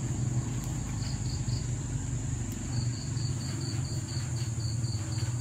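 Insects, crickets by their sound, chirping at night: a steady high trill with a repeated short chirp about four times a second, joining in about halfway through, over a steady low hum.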